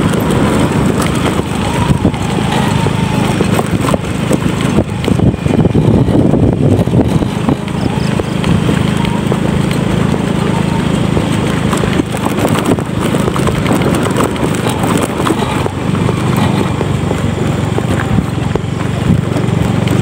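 Motorcycle engine running steadily under way, with irregular knocks and rattles from riding over a rough, stony road.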